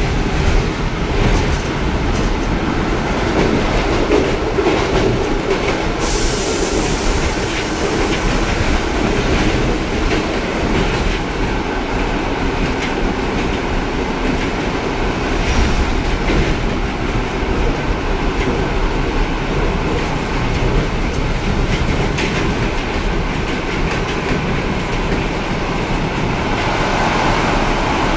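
Passenger-car interior of a ČD class 475 'Žabotlam' electric multiple unit on the move: the steady rumble of wheels and running gear on the track. About six seconds in, a high hiss starts suddenly and fades away.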